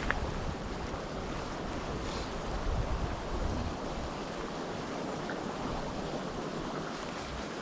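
Wind blowing steadily in open terrain, gusting against the microphone with a low buffeting rumble.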